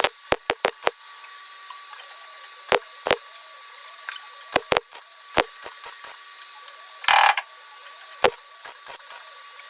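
Workshop tool and metal handling: a scatter of sharp clicks and knocks, with one short noisy burst about seven seconds in.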